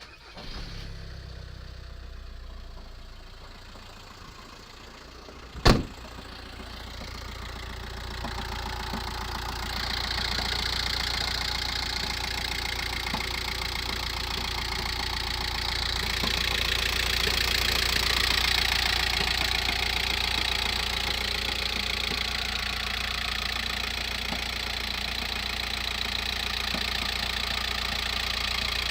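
VW T5 1.9 TDI four-cylinder diesel running at idle on a cold start, with a knocking from the engine or gearbox that occurs only when cold. One sharp loud knock about six seconds in, and the engine gets louder around ten seconds in.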